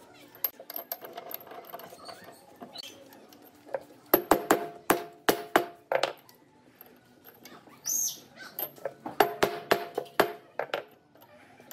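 Hammer blows on the end of a log mounted on a wood lathe, driving it onto the centers: a quick run of about seven taps, then after a pause another run of about five, each blow with a short ring.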